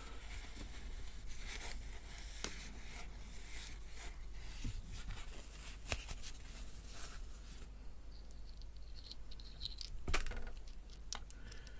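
Kitchen paper towel rustling and crinkling as hands rub vape tank parts dry, with small sharp clicks as the metal tank and coil parts are handled; the loudest click comes about ten seconds in.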